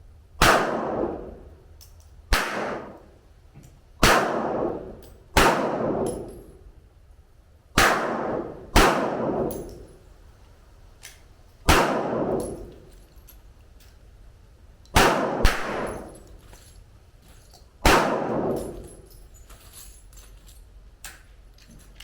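About ten single gunshots fired at an irregular pace, one to a few seconds apart, two of them in quick succession. Each shot is a sharp crack that trails off over about a second.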